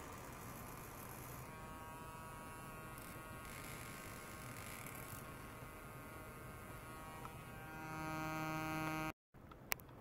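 Steady electrical buzz and hum from an ultrasonic oscillation and measurement setup. A set of steady tones joins about a second and a half in and grows louder near the end. The sound cuts off abruptly about nine seconds in, then two sharp clicks follow.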